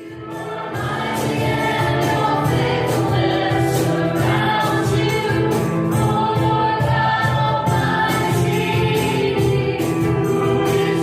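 Gospel-style worship music: a choir of voices singing over a band with a steady beat, swelling up during the first second.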